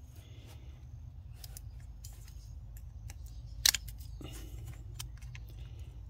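Small clicks and scraping of a thin metal pick working at a brittle, crumbling plastic wiring connector body, breaking its side away, with one sharp click about two-thirds of the way through. A steady low hum runs underneath.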